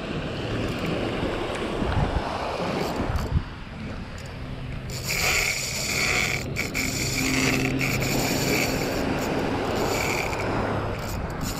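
Wind buffeting the microphone over small waves, then from about five seconds in a Shimano Twin Power spinning reel whirring steadily as the line is worked during the fight with a fish.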